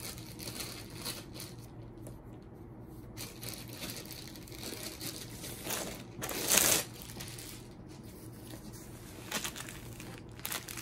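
Clear plastic packaging crinkling and rustling as a rolled diamond-painting canvas kit is unwrapped by hand, with a louder burst of crinkling about six and a half seconds in.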